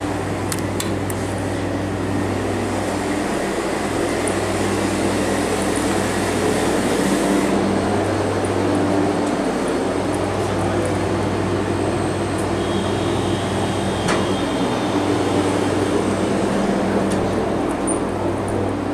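Steady low machine hum with a buzz in it, loud and unchanging, with a sharp click about fourteen seconds in.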